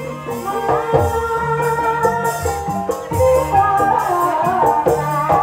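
Live Banyumas gamelan music accompanying an ebeg dance: struck metal keys ring out in sustained notes over repeated drum strokes, with a jingling rattle in the mix.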